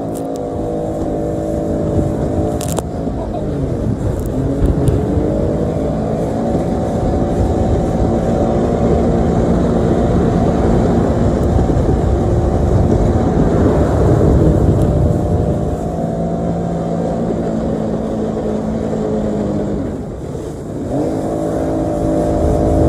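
Sea-Doo personal watercraft engine running hard, with rushing water over it. The revs drop away a few seconds in and again near the end, then climb back up.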